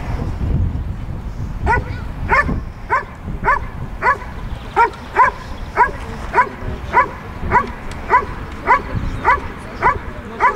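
A dog barking steadily and evenly, just under two barks a second, starting about a second and a half in: the bark-and-hold of IPO protection work, the dog guarding the helper in the blind. Wind rumble on the microphone comes before the barking starts.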